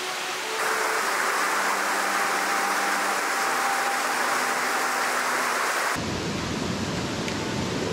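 Steady rush of a mountain creek flowing over rocks. About six seconds in, the sound changes abruptly to a duller, deeper flow with more rumble.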